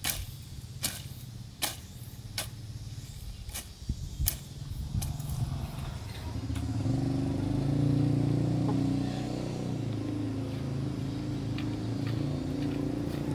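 A sickle swished through grass in sharp strokes less than a second apart. After about five seconds the strokes stop, and a motor vehicle engine running steadily grows louder and takes over.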